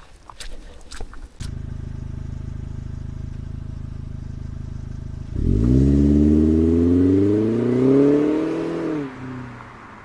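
An engine running steadily at a low pitch, then revving up about five seconds in, its pitch rising for a few seconds before it eases off and dies away.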